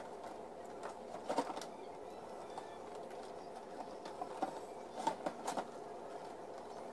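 A cardboard box being handled, its seals broken and the box turned: scattered taps and scrapes, clustered about a second in and again between four and six seconds in, over a steady faint hum.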